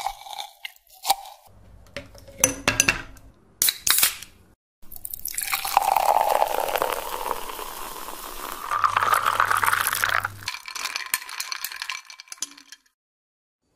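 A wooden muddler knocking and clinking against a glass bottle as it crushes watermelon pieces. About five seconds in, soda from a can is poured into the bottle in a steady stream for about five seconds, then fizzes while a straw stirs the drink with light clinks against the glass.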